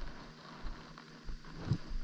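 Light wind rumbling on the microphone, with a few soft low bumps.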